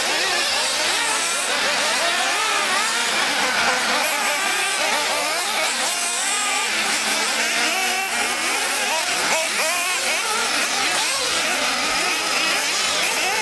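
Several 1:8-scale nitro RC buggy engines racing, their high-pitched whine rising and falling as the cars accelerate and brake, many engines overlapping at once.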